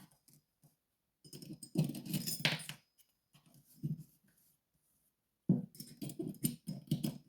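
Small metal discs and spacers of a disc detainer lock clicking and rattling as they are taken off the plug and set down, in groups of quick clicks: one about a second in, a short one near four seconds, and a longer run in the last two seconds.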